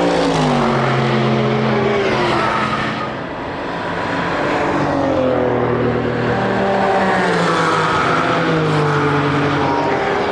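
Racing cars passing one after another at speed, several engine notes falling in pitch as each car goes by, with a short lull about three seconds in.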